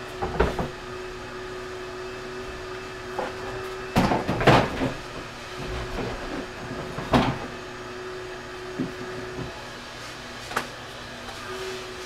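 Plastic car trim panels being handled and pulled free, giving short knocks and clatters, the loudest cluster about four seconds in, over a steady hum.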